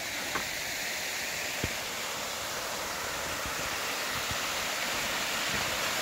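Steady rushing of a 93-foot waterfall, Overall Run Falls, heard as an even wash of water noise that grows slightly louder, with a couple of faint ticks.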